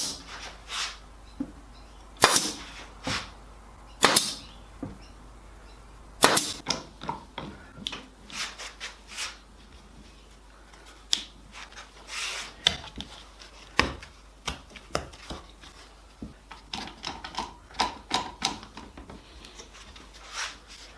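Pin gun firing pins into blackwood surround strips: several sharp snapping shots about two seconds apart, followed by a run of lighter irregular clicks and knocks.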